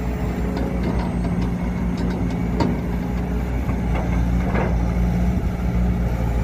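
Heavy diesel engine of an excavator or truck running steadily, with a scatter of sharp knocks and clatters through the middle.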